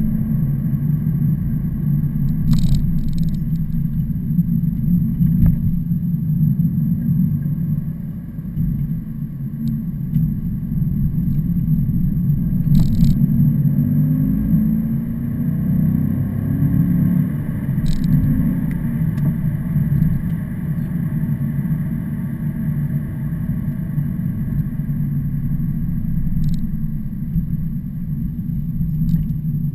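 Steady low rumble of heavy truck traffic, with a few brief clicks.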